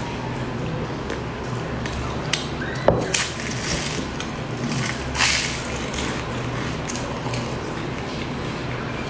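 Close-miked eating: bites into a sugar-coated fried pastry and chewing, with a sharp knock about three seconds in and a crisp crunch around five seconds, over a steady low hum.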